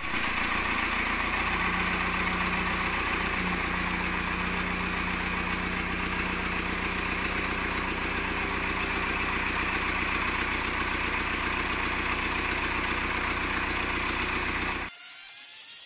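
Cummins 4D102 four-cylinder diesel engine running steadily on a stand, at an even idle; the sound cuts off near the end.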